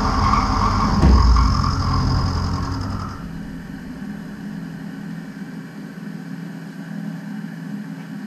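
Milling machine's four-flute slot drill cutting a 5 mm deep pass in mild steel at 650 rpm: a loud, steady cutting noise with a high ringing tone, and a heavy bump about a second in, which the owner takes as a sign of a bit of play in one of the table gibs. About three seconds in the cutter runs off the end of the block, the cutting noise stops abruptly, and only the spindle keeps running with a quieter steady hum.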